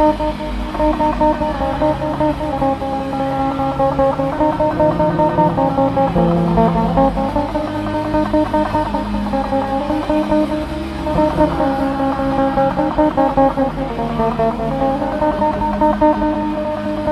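Instrumental background music led by guitar, with sustained tones over a steady pulsing rhythm.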